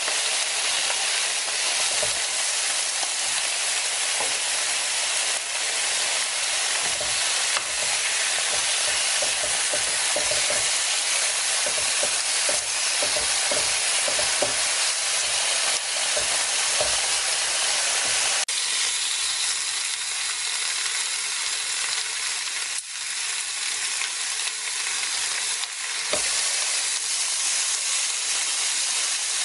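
Pork slices sizzling on a Korean barbecue grill plate: a steady hiss of meat and fat frying on the hot metal.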